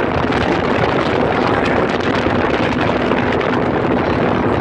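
Motorboat under way: a steady, loud rush of engine and wind noise, with a faint steady engine hum underneath.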